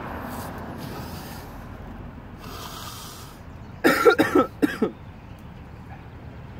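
A man coughing hard, four quick coughs about four seconds in, from the burn of the super-hot Death Nut peanuts he has eaten.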